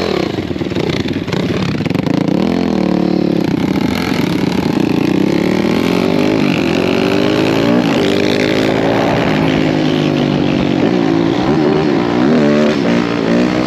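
190cc four-stroke single-cylinder pit bike engine under way, revving up and dropping back again and again as it runs up through the gears, with wind noise from the moving bike.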